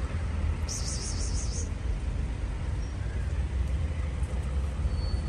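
Steady low rumble of road traffic, with a high, quickly warbling chirp lasting about a second, about a second in.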